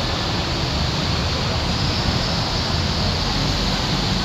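Steady rushing noise that holds even throughout, with no clear events in it.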